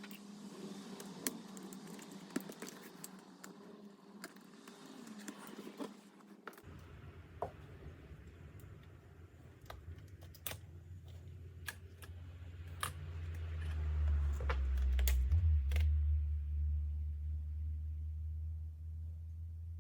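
Light clicks and taps of hands and tools working on a laptop's casing and parts. A low steady hum comes in suddenly about six and a half seconds in, grows louder in the middle and eases off near the end.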